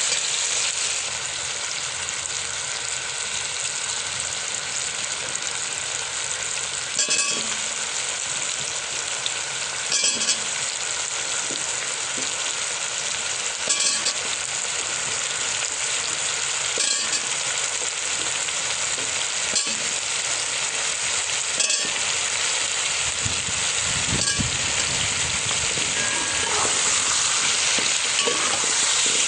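Food sizzling steadily in hot oil in a pan, stirred with a utensil that knocks against the pan every few seconds.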